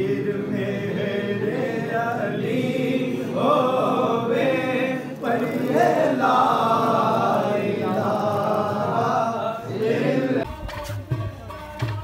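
Men's voices chanting together in a devotional recitation, which breaks off near the end.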